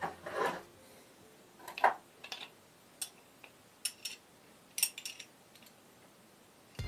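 Light metallic clinks and taps as a small metal bicycle sprocket is handled and fitted onto a shaft by hand: a handful of separate clinks, the loudest about two seconds in.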